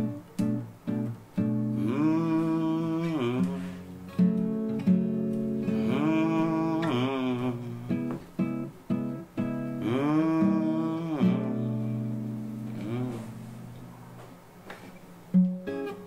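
Acoustic guitar picked in a steady pattern, with three long wordless vocal phrases over it that swell and bend up and down in pitch, about 2, 6 and 10 seconds in.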